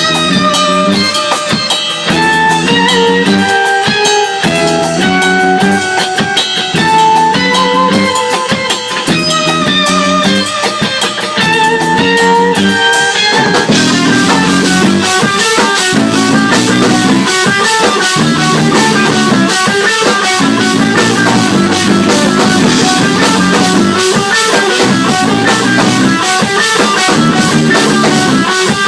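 Instrumental music with a plucked melody over drums; about halfway through it turns fuller and busier.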